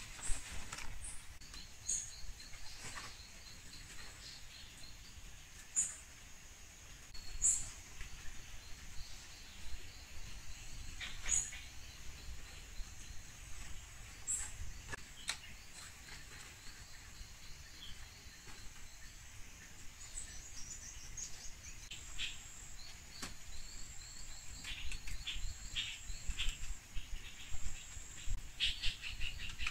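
Forest ambience: birds chirping and calling in short notes, with insects trilling steadily, high-pitched. Short rustles of palm fronds being handled come through, most of them near the end.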